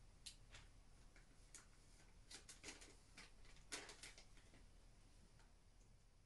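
Near silence with faint, scattered clicks and light rustles of packaged shopping items being handled and sorted, most of them bunched between two and four seconds in.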